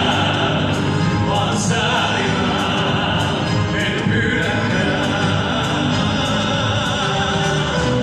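Live band playing with a singer in an operatic style, the voice wavering with vibrato over the accompaniment, and a drum kit keeping a steady beat on the cymbals.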